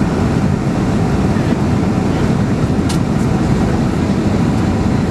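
Steady cabin noise inside a Boeing 767 airliner on approach: a constant low roar of engines and airflow, with a small click about three seconds in.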